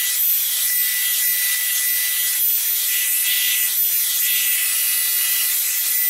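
Revlon One-Step Hair Dryer & Styler, a hot-air paddle brush, running: a loud, steady rush of air with a thin high whine from its motor, as the brush is drawn through hair.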